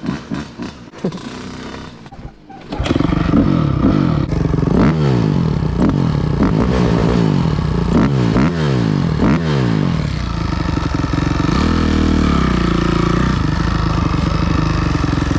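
Dirt bike engine suddenly catches and gets loud about three seconds in. It is blipped several times in quick rising-and-falling revs, then keeps running steadily.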